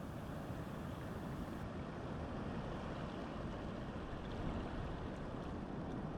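Steady wash of ocean surf with no distinct breaks or splashes.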